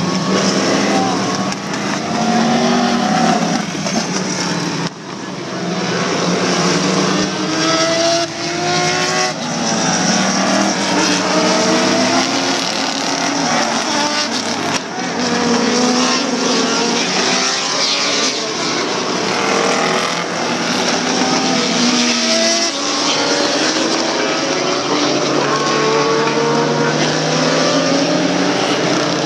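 Daytona Prototype and GT sports race car engines passing one after another on a wet track, the pitch climbing through the gears again and again as each car accelerates by.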